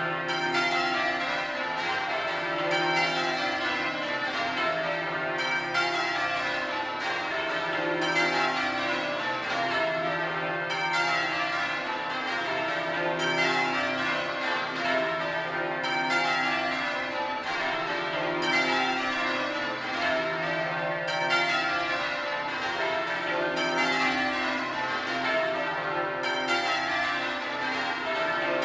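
A ring of twelve church bells, cast by Mears and Stainbank in 1956 with a 41 cwt tenor in C, being rung full circle. The bells strike one after another in a continuous, evenly paced sequence, and the tones ring on and overlap.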